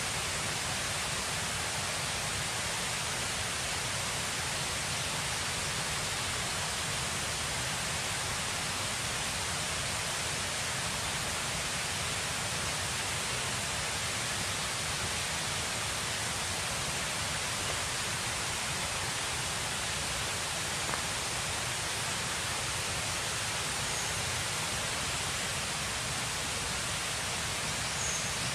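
Steady, even hiss of outdoor ambient noise, like distant rushing water or wind, with no clear events. Near the end come a few faint, short high chirps.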